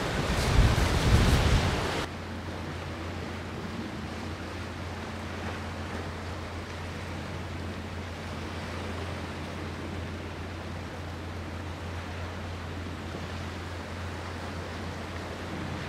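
Wind buffeting the microphone for about two seconds, then an abrupt cut to a much quieter steady low hum under a faint hiss.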